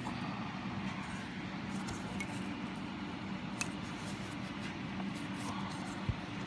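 A steady low mechanical hum with a few faint clicks, and a short low thump near the end.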